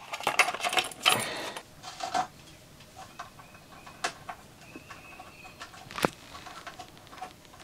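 Electrical tape being peeled off wires and plastic wire nuts being worked off in an RV air conditioner's electrical box. Crackly rustling in the first second and a half, then scattered small clicks, with sharp ones about four and six seconds in.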